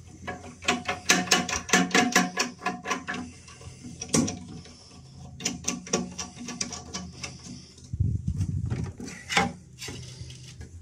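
Toilet fill valve's inlet fittings being screwed up by hand on the brass tail, with two runs of quick small clicks of plastic and brass parts. A low rubbing rumble follows near the end.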